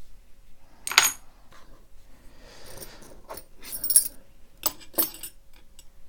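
Small metal clinks: a single sharp clink about a second in, then a ring of metal keys jingling and clinking several times between about four and five seconds in as it is laid on an aluminium pin tray.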